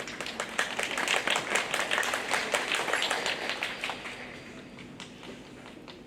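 Audience applause: many hands clapping, swelling quickly, then dying away over the last couple of seconds.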